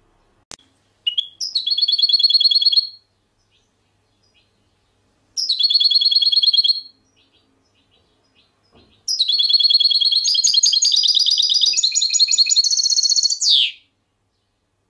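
A songbird singing three phrases of rapid trilled notes, the last one long and changing pitch several times before ending in a quick flourish. A single faint click comes just before the first phrase.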